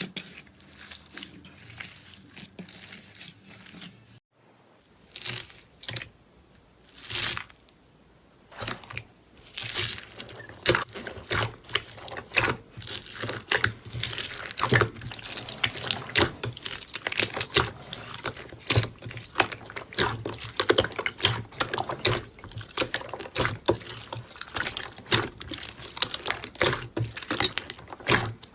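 Slime being squeezed and pressed by hand, crackling and popping. After a short break about four seconds in come a few separate squishes, then from about ten seconds on a dense, rapid crackle of small pops.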